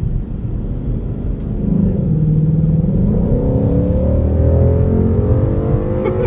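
Ford Mustang GT's V8 engine accelerating. It grows louder about two seconds in, and its pitch then climbs steadily as the revs rise.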